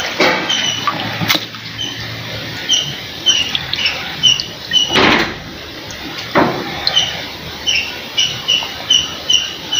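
A small animal chirping: short, high chirps repeated about two to three times a second from about three seconds in. Two brief splashes of water come at about five and six and a half seconds in.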